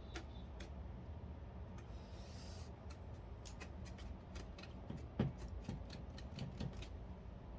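Light scraping and scattered small clicks as melted plastic shavings are picked off the freshly drilled holes in a PS3 plastic case, with a brief scrape about two seconds in and a small knock about five seconds in, over a low steady hum.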